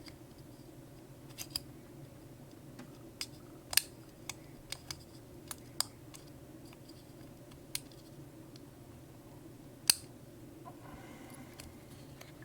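Small plastic electrical connector being handled: about a dozen sharp, irregular clicks and taps, two louder ones about 4 seconds in and near 10 seconds in, over a low steady hum.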